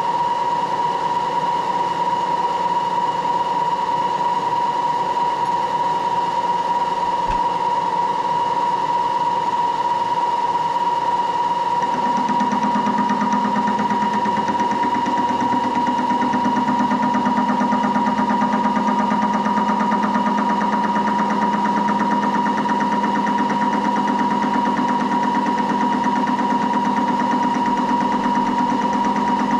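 Moore jig borer running with its spindle turning, machining an internal radius, with a steady high whine. About twelve seconds in a lower hum joins in and holds.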